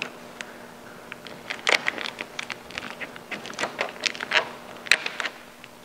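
Vinyl tint film crackling and ticking as fingers press it down around the edge of a tail light lens, in irregular small clicks.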